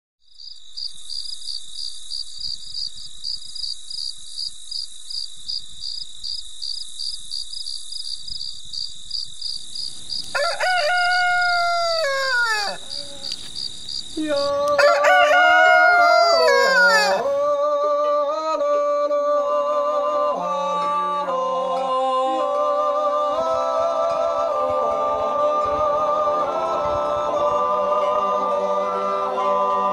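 A high, rapid chirping that pulses about three times a second, then a rooster crowing twice, the second crow louder. After that, voices start singing wordless held chords a cappella.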